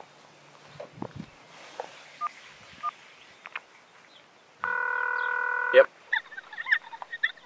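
An electronic beep: one steady tone held for about a second, starting a little past the middle and ending with a sharp click. A few faint clicks come before it. Short bird chirps follow near the end.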